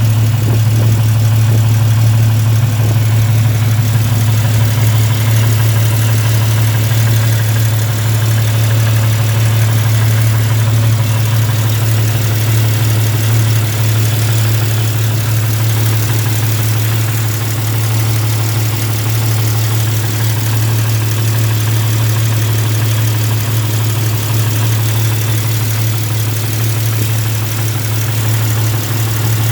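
Jeep inline-six engine idling steadily, with a rapid ticking from an exhaust leak: the exhaust manifold is cracked.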